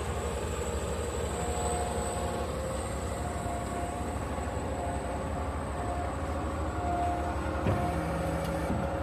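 Concrete mixer truck running steadily during a pour, a continuous low diesel rumble with a steady whine from the drum drive. A single knock comes near the end.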